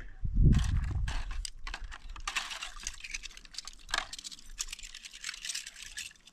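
Dishes being washed by hand in plastic basins: rapid small clicks and clatter of bowls, a metal tray and utensils, with scrubbing and a little water. A brief low rumble about half a second in is the loudest moment.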